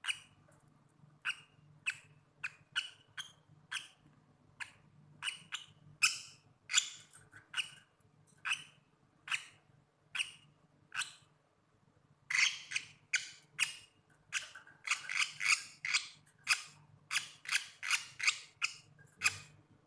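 A lovebird held in the hand gives short, harsh squawks over and over, about one or two a second. They pause for a few seconds in the middle and then come faster near the end.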